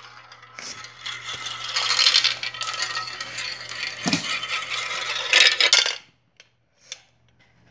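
Marbles rattling and clattering against the plastic track and pieces of a toy marble run, a dense run of small hard clicks that is loudest just before it stops suddenly about six seconds in. A few faint clicks follow.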